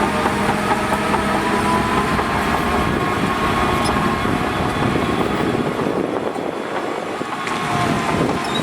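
Shantui DH17C2 crawler bulldozer working: a steady diesel engine note under the clatter of its steel tracks, with faint thin squeals.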